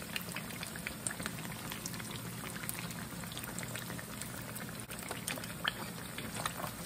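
Beer-battered tilapia fillets frying in hot oil in a skillet: a steady sizzle dotted with many small crackles and pops.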